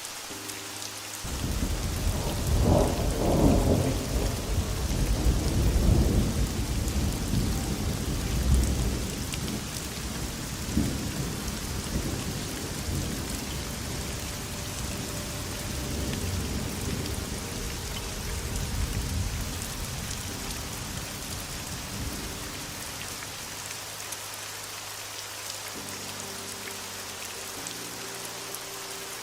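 Steady heavy rain, with a long roll of thunder that breaks in about a second in, is loudest over the next several seconds, and rumbles away over roughly twenty seconds.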